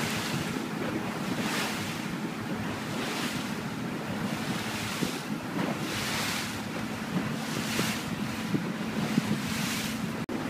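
A moving boat's engine drones steadily under rushing water, with the wash swelling every second or two. Wind buffets the microphone throughout.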